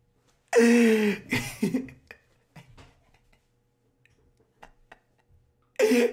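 A voice: a loud, short outburst about half a second in, with a shorter one right after, then faint scattered clicks, and another short vocal burst near the end.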